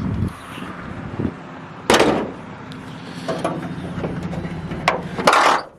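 Sharp metal knocks and clanks around a vehicle's engine bay while jumper cables are being hooked up to a dead battery, a loud one about two seconds in and a cluster near the end, over a low steady hum.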